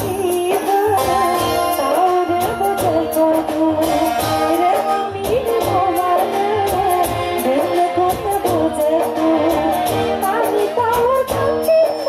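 A woman singing a song live into a microphone, backed by a band with drums keeping a steady beat under the melody.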